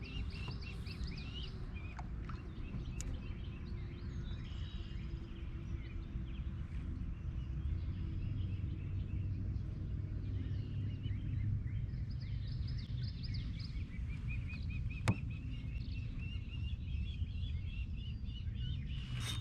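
Outdoor ambience of several birds chirping and singing over a low, steady rumble, with a single sharp click about three-quarters of the way through.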